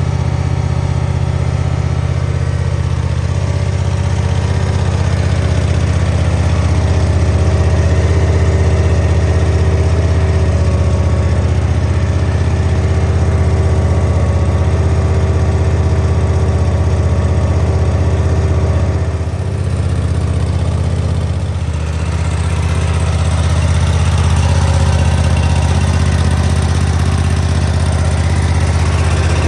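Engine idling steadily with a low, even hum that dips briefly twice about twenty seconds in.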